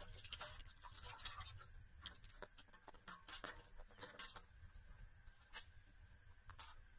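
Faint splashing and wet handling as raw chicken pieces are rubbed and washed by hand in water in an aluminium basin, busiest in the first second. After that come scattered small clicks and taps.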